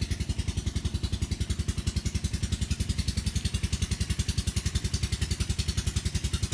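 A small single-cylinder engine idling steadily, with a fast, even chugging of about a dozen beats a second.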